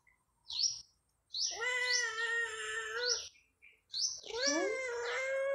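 A domestic cat meows back in long drawn-out calls: one steady meow about a second and a half in, then a second, wavering meow near the end. Small birds chirp briefly in the background.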